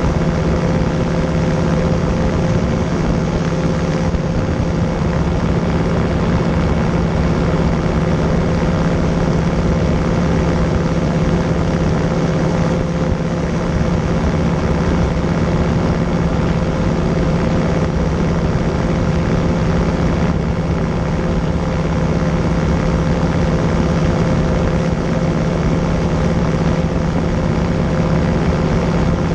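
CGS Hawk ultralight's pusher engine and propeller running steadily in cruise flight, a constant drone that holds one pitch throughout.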